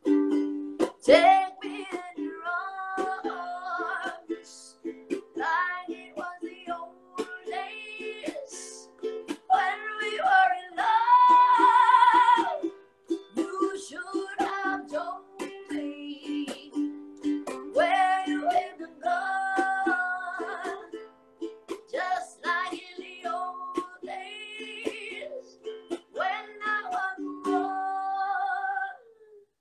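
A ukulele strummed in steady chords while a singer sings over it. Around eleven to twelve seconds in comes the loudest moment, a long high note held with vibrato. The playing stops just before the end.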